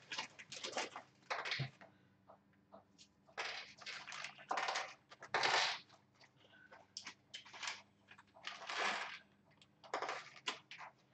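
Clear plastic bag crinkling and rustling in irregular bursts as parts are handled inside a cardboard box, over a faint steady low hum.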